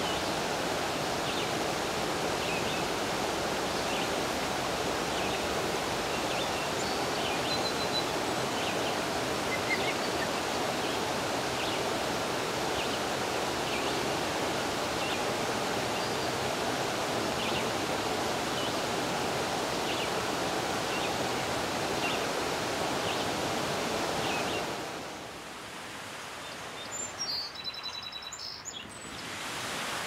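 Waterfall rushing steadily, with faint short bird calls repeating about once a second over it. About 25 seconds in the rush stops, leaving a quieter stretch with a few brief bird chirps.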